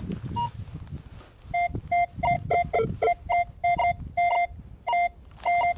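Metal detector beeping in short, repeated tones, about two a second and mostly at one pitch with a few higher and lower ones, as its coil is swept over a freshly dug hole: it is sounding on metal in the hole.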